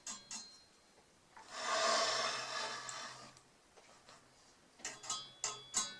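A metal part being slid across the table saw makes a scraping rub that lasts about two seconds. Picked guitar music comes back in near the end.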